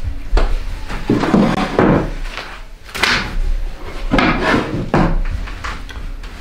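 A string of knocks, thuds and rustles as someone comes to a table: a door-like bang, footsteps, a file of papers set down on the table and a chair moved.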